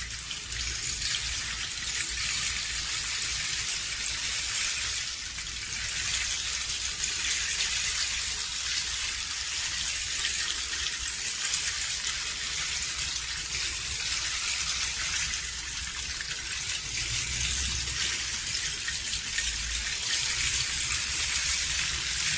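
A 60-inch Meinl rain stick held at a slant and slowly turned, its fill trickling down inside in a continuous soft rain-like hiss at a steady, fairly brisk rain pace.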